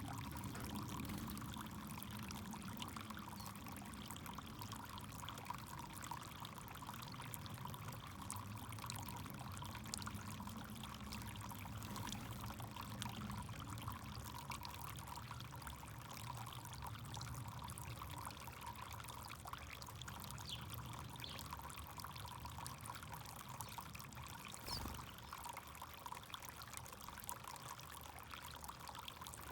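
Backyard fountain's water pouring and trickling steadily, with one brief soft knock near the end.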